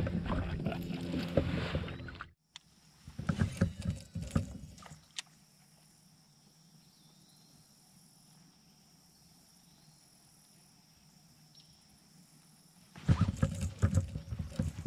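Knocks, bumps and rattles of a fisherman moving about and handling gear on a plastic fishing kayak, in two loud clusters with a long quiet stretch between; the second cluster, near the end, comes as a fish is hooked. A low steady hum runs under the opening two seconds and cuts off abruptly.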